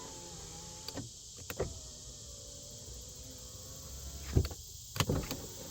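Chrysler Aspen power window motor running steadily as the glass travels, worked from a newly replaced master window switch, with sharp clicks from the switch and door. The motor stops with a clunk about four seconds in, followed by a couple more clicks.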